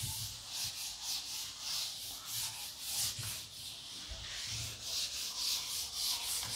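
Chalkboard duster rubbed back and forth across a chalkboard in quick, even strokes, wiping off chalk writing.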